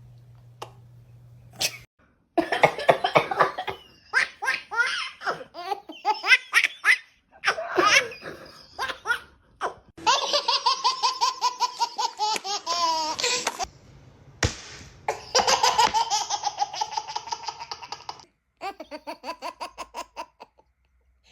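Babies laughing in fits of rapid, high-pitched giggles, across several short clips with abrupt cuts between them.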